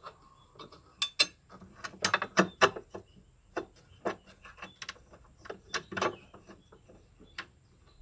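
Irregular clicks and knocks of metal parts being handled on the spin-dryer motor, pulley and bracket of a single-tub washing machine, loudest about a second in, around two seconds and near six seconds.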